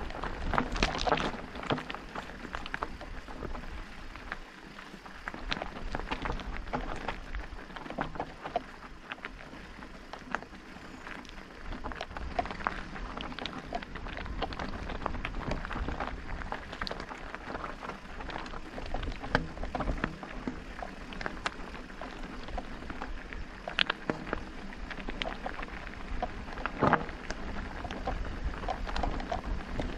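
Electric mountain bike ridden over a rough trail: tyres crunching on gravel and stones under a steady rumble, with many sharp rattles and knocks from the bike.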